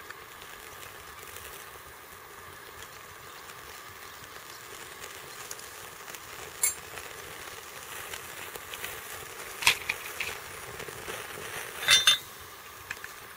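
Wooden matches struck against a matchbox's striking strip: a few short sharp scrapes a few seconds apart, the loudest near the end, over a steady faint hiss.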